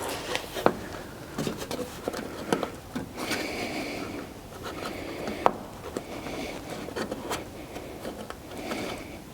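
Hand work on a car door: scraping, rubbing and small knocks and clicks, with four short high squeaks of about a second each.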